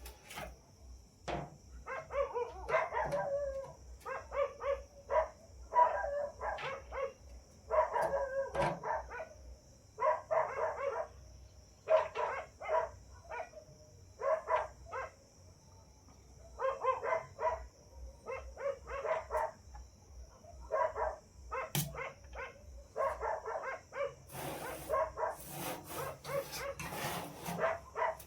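A dog barking repeatedly in quick runs of short barks, with brief pauses between runs, over a faint steady high-pitched hiss. Several sharp clicks and rustles come near the end.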